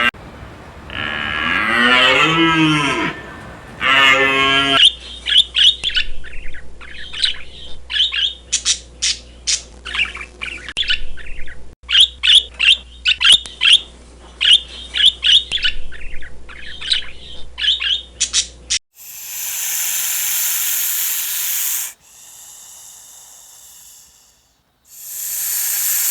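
A cow mooing, then a long run of rapid, short, high-pitched animal calls, then two loud hissing bursts near the end.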